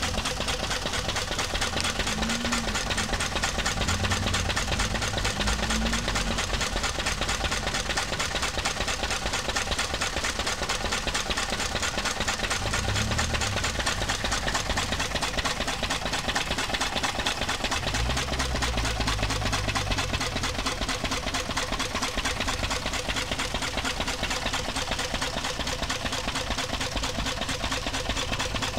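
1942 Lister CS single-cylinder diesel stationary engine running steadily with an even, rapid beat while it drives a K'Nex ball machine.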